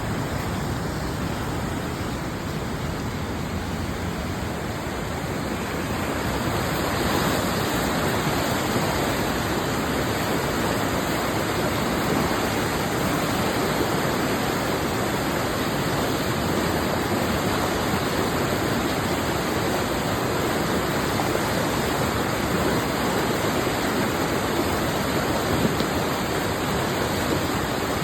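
Saane River in full spate, its fast water rushing loudly and steadily, growing a little louder about seven seconds in.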